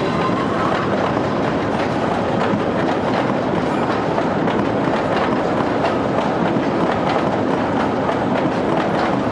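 Cars of the Kurobe Gorge Railway's 762 mm narrow-gauge trolley train rolling past close by: a steady rumble of steel wheels on rail, with light clacks as they pass over rail joints.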